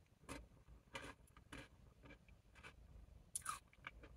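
Faint mouth sounds of someone eating corn chowder off a plastic spoon: a handful of short, soft smacks and clicks at irregular intervals, the loudest about three and a half seconds in.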